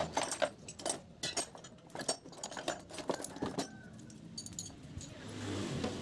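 Irregular light clicks and clinks of hands handling small metal and plastic parts inside an opened refrigerator, about a dozen over the first three and a half seconds, then quieter with a faint low hum near the end.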